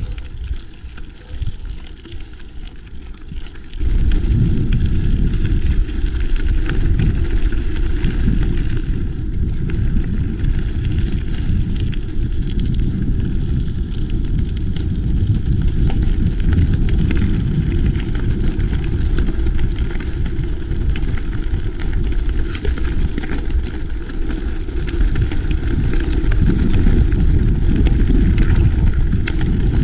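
Wind noise on the microphone of a mountain bike being ridden along a gravel road, with tyres crackling over the gravel. The wind noise comes in loud and low about four seconds in and stays.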